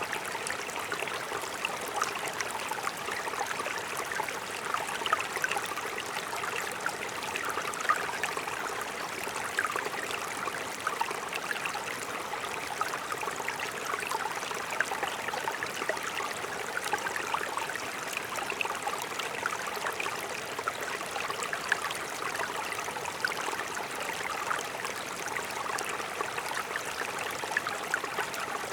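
Alpine mountain stream running over rocks: a steady rush of water, with many small, quick splashes flickering through it.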